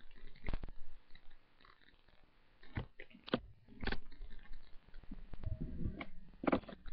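Handling noise from a laptop being carried and moved about: a series of short, sharp knocks and clicks, about six in all, with some low rumbling shortly before the last knock.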